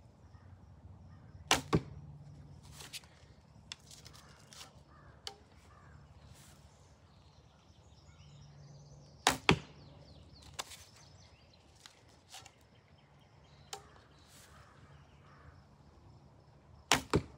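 Three arrows shot from a Browning Explorer 1 recurve bow with wood arrows, about eight seconds apart. Each shot is a sharp release of the string, followed about a quarter second later by a second sharp sound, the arrow striking the target.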